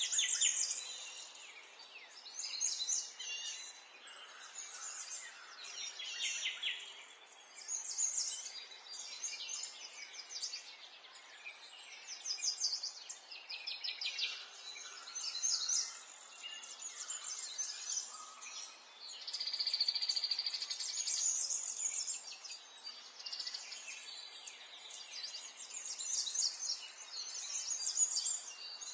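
Songbirds chirping and trilling, with many short calls and rapid trills overlapping, over a faint steady background hiss.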